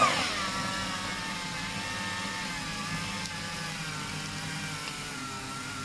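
Small home paper shredder's motor whining under heavy load as it cuts a stack of eight sheets at once, more than the six its maker promises. It spins up with a brief rise in pitch, sags as the stack is drawn into the cutters, then runs steadily.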